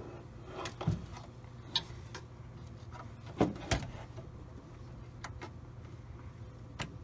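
Scattered light clicks and knocks of a modular power-supply cable and its plastic connector being handled and plugged into a Corsair RM850x power supply, about six sharp clicks spread over several seconds.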